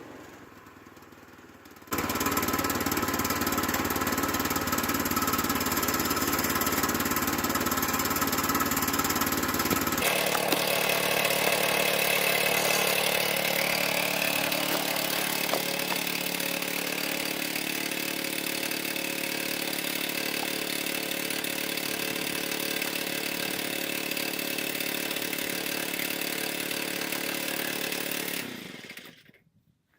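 Woodland Mills HM122 bandsaw mill running, its engine at a steady speed as the band blade cuts through a pine log. The sound starts abruptly about two seconds in, changes suddenly near ten seconds, and fades out just before the end.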